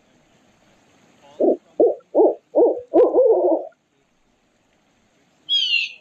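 Barred owl hooting: four short hoots in quick succession followed by a longer, wavering final hoot, the rhythm of its 'who-cooks-for-you' call. Near the end, a brief, much higher call that falls in pitch.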